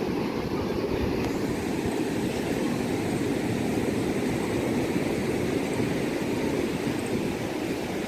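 Steady rush of sea surf breaking on a sandy beach, with a low, uneven rumble of wind on the microphone.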